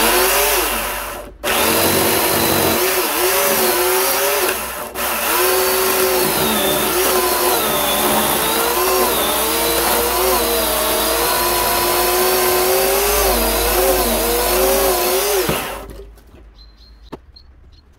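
Corded McCulloch electric chainsaw with a sharp new replacement chain cutting through a thick old wooden beam. Its motor note dips and wavers under load, breaks off briefly at about a second and a half and again near five seconds, then cuts on steadily and stops about sixteen seconds in.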